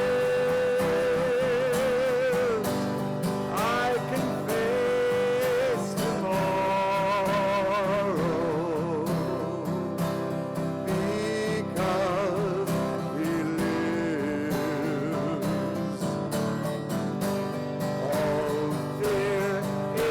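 Music: a song with a solo voice singing long held notes with vibrato over a steady instrumental accompaniment.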